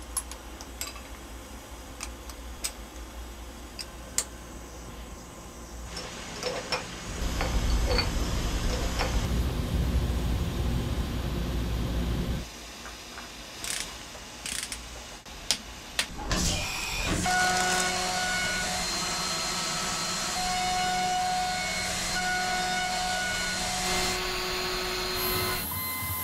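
Metal clicks and knocks of a vise and workpiece being clamped onto a CNC mill table, then a stretch of loud low rushing noise. Near the end, the spindle of a DN Solutions DVF 5000 5-axis mill rises in pitch and settles into a steady high whine with several held tones while a small end mill engraves the metal block.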